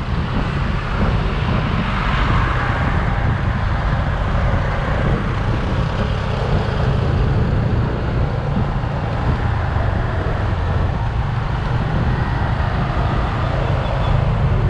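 Riding a motorcycle in city traffic: the motorcycle's engine and the surrounding road traffic as a steady, loud low rumble with no distinct single event.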